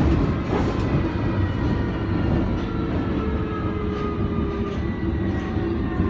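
London Underground District line train heard from inside the carriage while running along the track: a steady rumble of wheels on rail with a faint electric motor whine that slides slowly in pitch.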